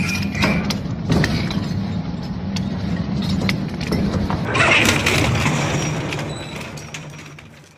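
Hammer crusher running with a steady low drone and scattered sharp knocks as material is smashed inside it, with a louder surge about five seconds in. The sound fades out near the end.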